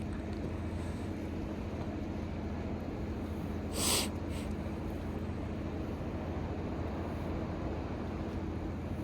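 A boat engine running steadily with a low hum, and one short hiss about four seconds in.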